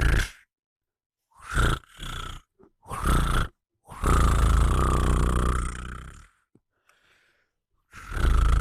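A person snoring close to the microphone in rattling snores: one trails off just after the start, three short snorts follow, then one long snore lasts about two seconds and another begins near the end.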